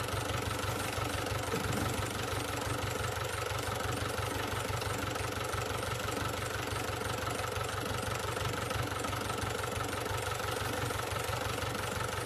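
Tractor diesel engine idling steadily with an even low chug.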